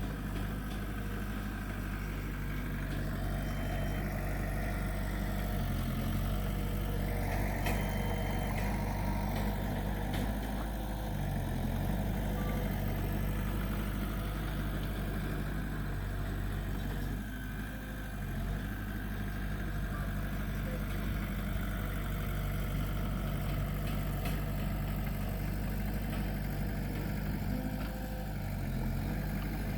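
Heavy diesel earthmoving engine running steadily, its low note shifting briefly three times.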